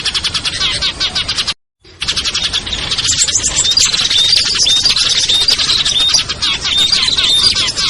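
A dense mix of small songbirds chirping rapidly and continuously, a recorded bird-trapping lure call. It cuts out completely for a moment about one and a half seconds in, then carries on with repeated short, high notes.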